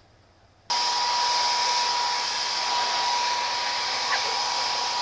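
A loud, steady hiss with a single steady high whine running through it, switching on abruptly under a second in.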